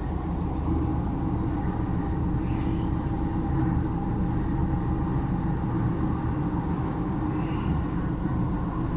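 Delhi Metro train running at speed: a steady rumble with a faint steady whine above it.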